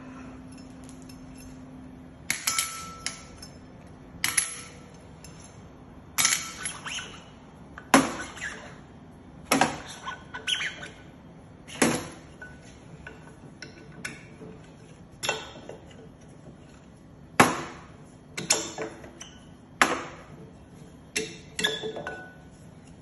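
Stainless-steel parts of a Tosei SS21 shumai machine clinking and knocking as they are picked up, set down and fitted, with about fifteen irregular sharp clinks, roughly one every second or two.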